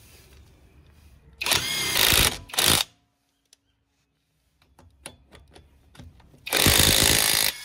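Xtra Power XPT-485 cordless impact wrench hammering on a car's wheel lug nuts in three runs: one of about a second, a short blip just after it, and another of about a second near the end. A few light clicks come from the socket being moved between nuts.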